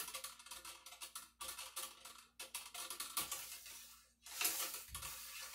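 Cleaning rod with a bore brush stroked in and out of a wet black powder rifle barrel, a fast run of scraping and rattling strokes with a louder stretch near the end.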